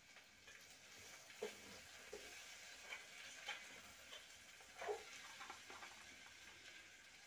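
Faint sizzle of flux and solder as a soldering iron tip heats a wire joint, with a few soft clicks from the parts being handled.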